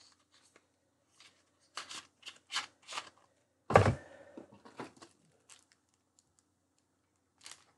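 Small plastic and paper packets being handled and torn open: a run of short crinkles and ticks, with a louder thump about four seconds in as a hand reaches into the cardboard box.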